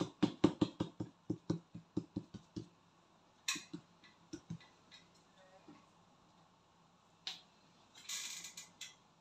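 A quick run of sharp knocks and clicks, about five a second, fading out after two and a half seconds. Then a few scattered single clicks and a short rustle about eight seconds in.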